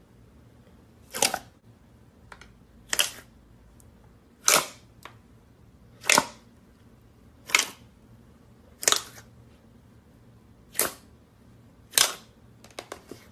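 Clear slime popping as a hand presses into it and pulls away: eight sharp pops, about one every second and a half, then a quick run of small crackling clicks near the end.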